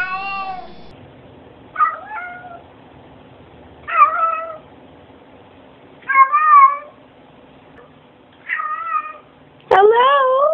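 Domestic cats meowing: about six short meows, roughly one every two seconds, each bending up and down in pitch, with the longest one near the end.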